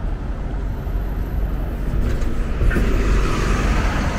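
City street traffic, a steady low rumble, with a transit bus close by growing louder about two-thirds of the way through as its engine and tyre noise swell.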